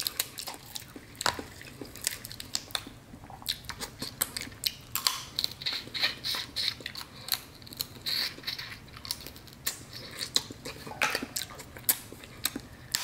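Close-up eating sounds of cooked snow crab legs: irregular sharp cracks and snaps of the shell being broken, with wet chewing of the crab meat in between.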